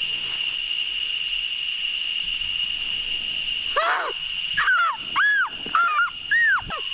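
A series of shrill, arching squeals, each rising and falling in pitch, repeated about twice a second from around four seconds in: an agouti distress scream, the call hunters use to draw agoutis and predators in. Under it runs a steady high drone of rainforest insects.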